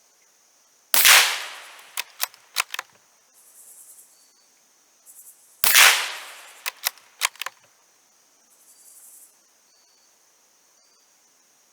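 Two shots from a Savage B22-V .22 rimfire bolt-action rifle, about five seconds apart. After each shot come four quick metallic clicks as the bolt is worked to eject and chamber the next round. Insects chirr steadily underneath.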